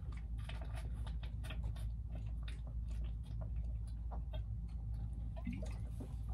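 Someone drinking from a water bottle: faint irregular gulping and swallowing clicks over a steady low hum.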